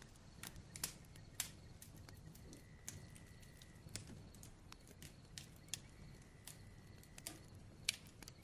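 Bonfire crackling faintly: irregular sharp pops and snaps over a low, steady hiss of the flames.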